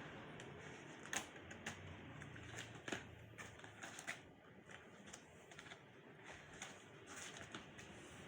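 Scattered light clicks and taps of small hard plastic and metal parts being handled on a laptop, irregularly spaced, with the two sharpest about a second and three seconds in.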